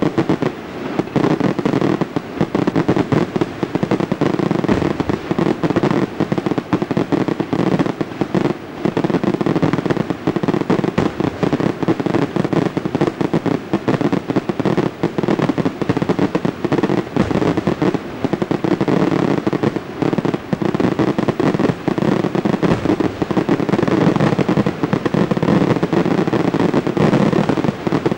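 Aerial fireworks display: a rapid, unbroken barrage of shell bursts and crackle, with no pauses.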